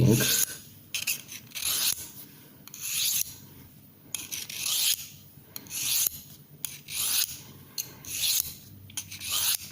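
A stainless steel knife blade drawn repeatedly along the oval ceramic rod of a Victorinox Dual-Knife Sharpener, a rasping stroke roughly once a second: the abrasive removing steel from the edge.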